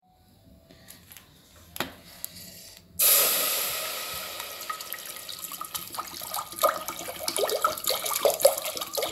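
Water poured in a stream into an empty aluminium pressure cooker. It starts about three seconds in with a loud splash on the metal bottom, then goes on as steady splashing and gurgling as the pot fills. One sharp knock comes shortly before the pour.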